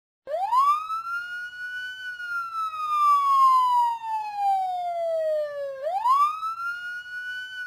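A siren wailing: its tone rises steeply over about a second and a half, sinks slowly over about four seconds, then climbs again near the end.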